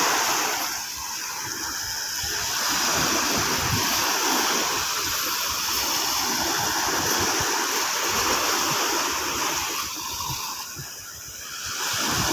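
Sea surf washing in the shallows, a steady rush of water that eases briefly about a second in and again near the end.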